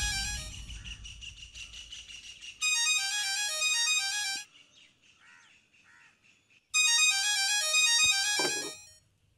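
Background film music fading out, then a mobile phone ringtone playing a short repeating melody twice, each burst about two seconds long, with a pause between.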